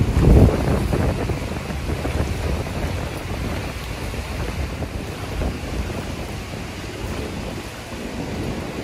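Wind buffeting the microphone over the wash of shallow surf, with a strong gust just after the start.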